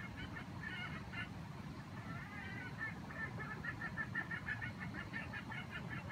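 Jungle chicken calling in runs of short, quick notes: a brief burst near the start, then a longer run from about two seconds in to the end.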